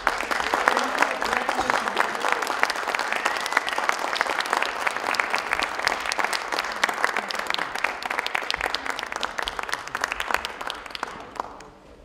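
Audience applauding, a dense patter of many hands clapping that thins out and fades near the end.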